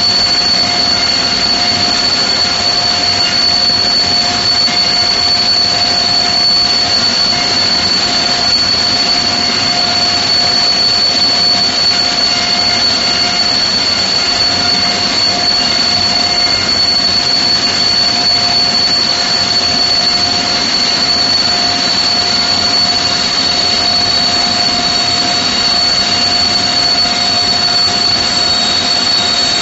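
Vickers Vanguard's Rolls-Royce Tyne turboprop engines running at a steady setting: a loud, even rush of engine noise with a steady high-pitched whine over it.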